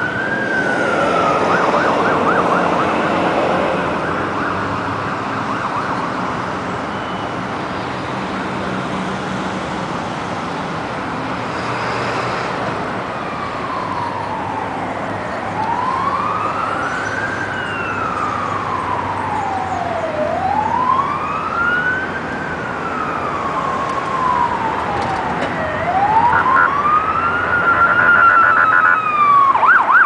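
Fire rescue truck's siren sounding a wail that rises and falls every few seconds, switching briefly to a fast yelp near the start and again near the end.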